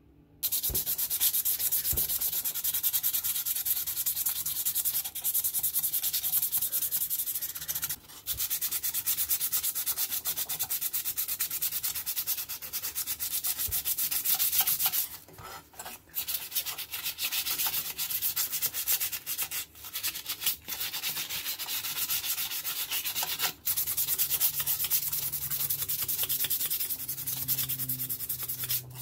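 Metal scissors blade being hand-sanded with silicon carbide abrasive paper: quick back-and-forth rasping strokes. Brief pauses come about eight, fifteen and twenty-three seconds in.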